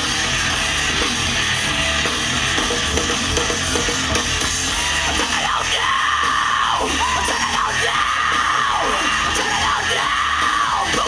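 Live rock band playing loudly, with guitars and drums under yelled lead vocals; from about halfway in, the voice holds and bends high drawn-out notes.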